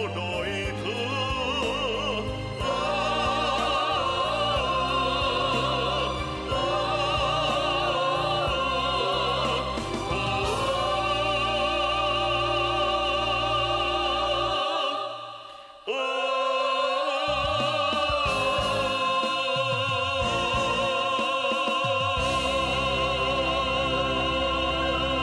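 Male lead singer and a small female chorus singing the closing bars of a Vietnamese song over instrumental backing, in long held notes with vibrato. The music fades and breaks off briefly about 15 seconds in, then comes back abruptly for a final long held note.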